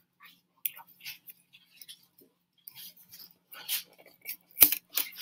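Paper guide and clear tape crinkling and rustling under the fingers as the guide is taped around a cardboard rocket body tube, in short irregular bursts, with one sharp tap about four and a half seconds in.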